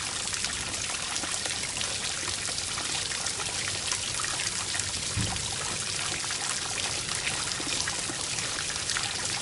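Water pouring through a clear plastic test tank and spilling out of its sides in jets, splashing and dribbling steadily.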